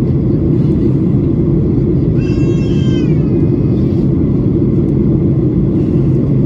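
Steady rumble of a Boeing airliner's cabin in flight, engine and airflow noise. About two seconds in, a short high-pitched cry falls in pitch.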